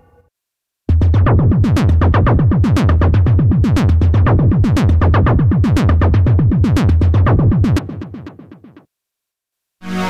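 Arturia Pigments software synthesizer playing its Hyperbooth preset: a rapid, clicky techno synth sequence of short repeated notes over a steady low bass pulse. It starts about a second in and fades out near the end.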